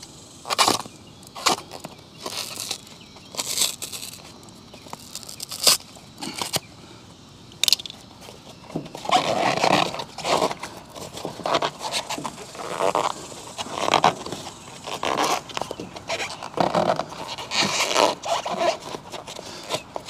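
Closed-cell Armaflex foam pipe insulation being trimmed with a knife and rubbed into place, a run of irregular short scraping and rubbing sounds. The sounds come denser and longer through the second half as the cut pieces are worked together into a miter joint.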